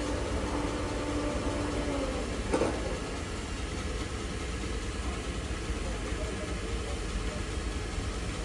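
Merseyrail electric multiple-unit train standing at the platform, its onboard equipment humming steadily. A steady humming tone stops about two seconds in, followed by a short clunk, then the lower hum carries on.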